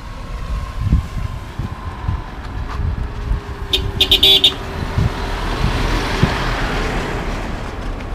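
Motor vehicle running on the road, with a short horn toot about four seconds in and a rushing noise that swells near the end.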